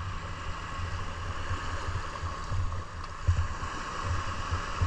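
Small waves washing over sand in shallow water: a steady rushing wash, with wind buffeting the microphone in uneven low rumbles.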